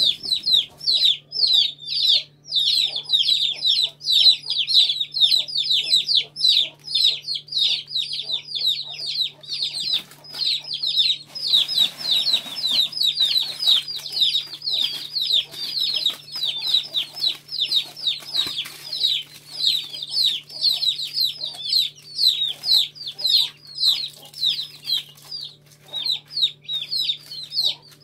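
A flock of Aseel chicks peeping without pause, many short high-pitched calls a second, each falling in pitch. Around the middle a plastic rustle of snack wrappers being handled joins in.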